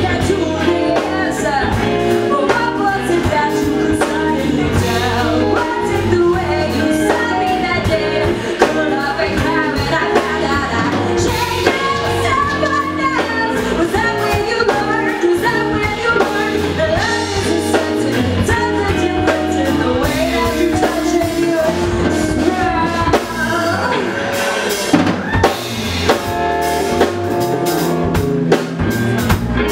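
Live band playing a song: a woman singing lead over electric bass, electric guitar and a drum kit.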